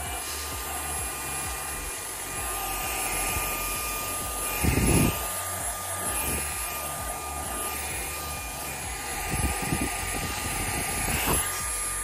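YONNDER E1 cordless handheld vacuum running in its regular, non-boost mode with a steady high whine as its brush nozzle works over a leather car seat. A few thumps come through the motor sound, the loudest about five seconds in and others near the end.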